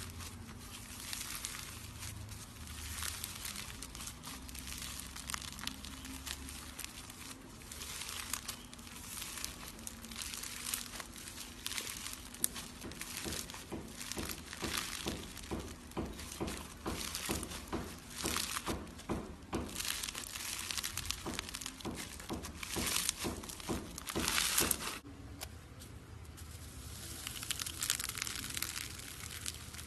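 Slime being worked by hand, giving a steady crackling and crinkling. About halfway through come rapid repeated clicks, a few a second, that stop suddenly.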